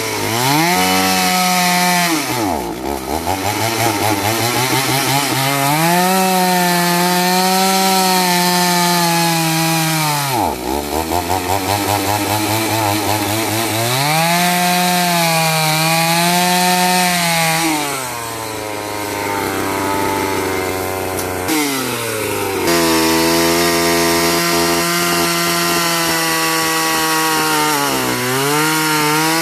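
Chainsaw running at high revs while cutting through the trunk of a felled jackfruit tree; the engine note drops sharply and climbs back several times.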